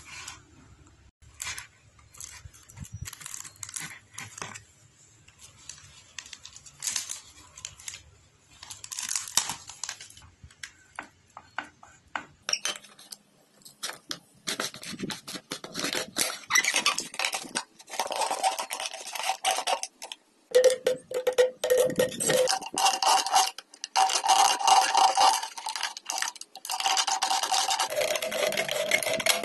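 Utility cutter knife blade cutting and scraping through the thin plastic of a soft-drink bottle: a rasping, squealing scrape in repeated strokes of a second or two, from about halfway on. Before that, light taps and crinkles of the plastic bottle being handled.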